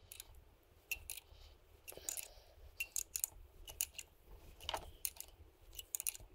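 Faint, irregular metallic clicks, in little groups about a second apart, from a hand tool turning a Time-Sert thread-repair insert into a stripped drain-plug hole in a Yamaha YZ450F crankcase. The insert is tightening and expanding into the threads.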